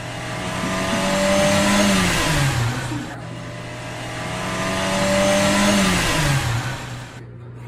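Car engine sound effect, heard twice: each time the engine note swells louder over about two seconds, then drops in pitch and fades like a car speeding past.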